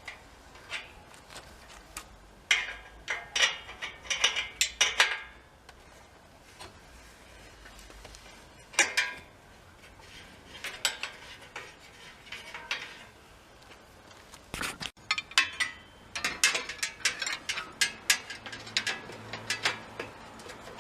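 Bursts of rapid metallic clicking and clinking from hand tools working on metal bicycle parts, with ratchet-like runs of clicks.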